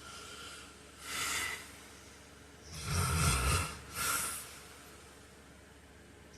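A man snoring in his sleep: a short breathy breath about a second in, then a louder snore with a low vibrating rumble around three seconds in, followed at once by a short breathy breath.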